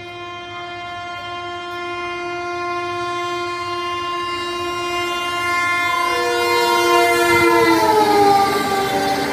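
Locomotive horn of the Tejas Rajdhani Express, one long chord held as the train approaches at speed and growing louder, then dropping in pitch as the locomotive passes near the end. The rushing noise of the train rises beneath it.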